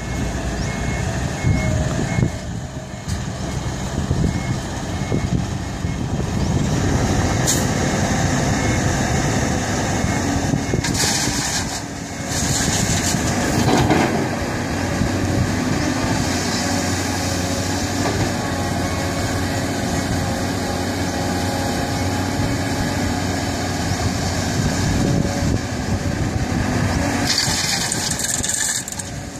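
Caterpillar 320D tracked excavator's diesel engine and hydraulics working steadily under load as it digs soil and swings full buckets over to a dump truck. A brief hiss comes twice, near the middle and near the end.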